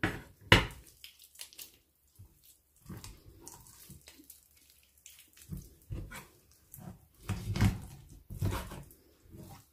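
Raw chicken being pulled apart by hand and cut with a knife on a wooden cutting board: wet squelching and tearing of skin, meat and joints. Two sharp knocks on the board at the start, and bursts of cutting noise near the end.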